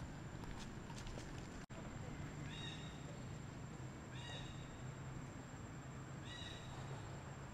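Baby monkey crying: three short, high-pitched calls, one every couple of seconds.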